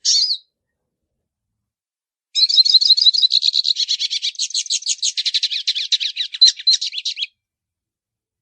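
Pintassilgo (a Brazilian siskin, the 'baianinho' song type) singing: a short twitter at the start, then, about two seconds in, a long, fast run of high chattering and warbled notes lasting about five seconds.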